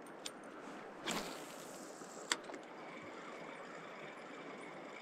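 Steady outdoor noise with a faint high steady tone, broken by a brief whoosh about a second in and a sharp click a little past two seconds, with a smaller click near the start.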